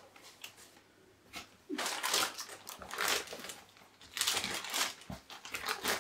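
Clear plastic bag around a laptop crinkling and rustling as it is handled, in irregular bursts that start after a quiet second or so.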